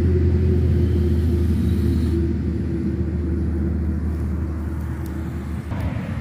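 Steady low rumble with a faint hum above it, easing off a little near the end.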